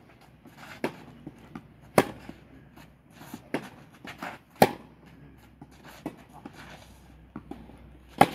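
Tennis rally on a clay court: sharp pops of the ball struck by racket strings, the loudest about two seconds in, again past four and a half seconds and near the end, with fainter hits and ball bounces in between.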